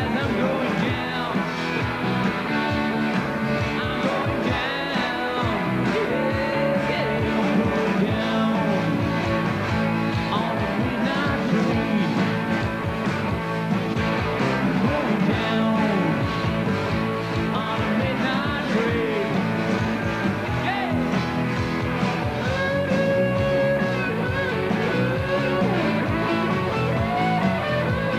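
Rock band playing live on a festival stage: electric guitars, bass and drums in a steady, loud mix.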